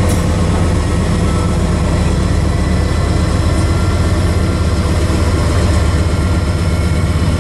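Union Pacific diesel locomotives passing close, their engines running with a steady, loud low drone.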